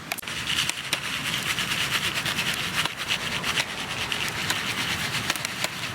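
Campfire burning, crackling with irregular sharp pops over a steady hiss.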